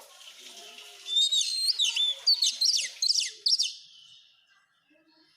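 Oriental magpie-robin (kacer) singing: after a faint hiss, a loud run of quick, high whistled notes, many sweeping downward, starts about a second in and lasts nearly three seconds before fading out.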